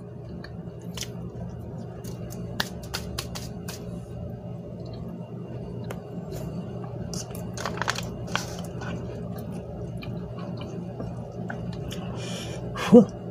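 A person chewing and eating, with scattered wet mouth clicks and a few sharper clicks, over a steady low hum.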